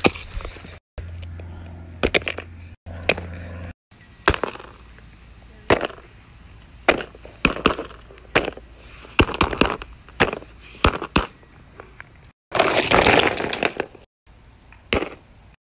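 Silicone pop-it fidget toys and other plastic fidgets clicking and tapping as they are pressed and handled, a string of sharp separate clicks broken by several abrupt cuts. Near the end comes a longer rustling clatter, the loudest part. A steady high whine runs behind most of it.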